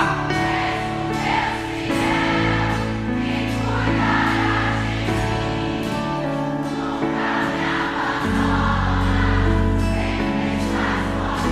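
Live worship band playing a sustained instrumental passage, with bass, keyboard chords and a wordless choir-like wash of voices.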